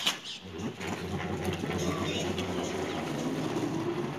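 Inflated balloon fixed to a bicycle so that the wheel's spokes flick against it as the bike is ridden, making a rapid, steady motorcycle-like putter. It starts about half a second in after a sharp click.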